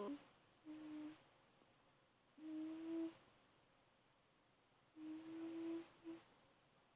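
An 8-week-old German Shepherd puppy asleep, making short, steady-pitched humming sounds in its sleep, about half a second each and about two seconds apart.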